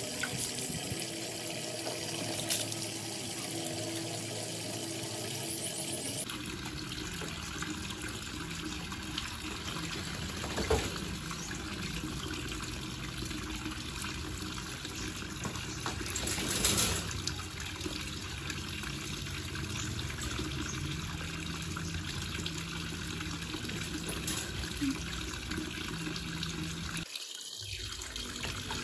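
Running water splashing onto a concrete wash floor, a steady rush that briefly swells twice.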